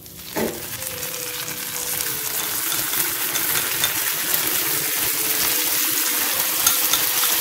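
Fish-sauce dressing sizzling as it is poured into a hot pan of frying egg and egg tofu: a steady frying hiss that grows louder over the first couple of seconds, then holds.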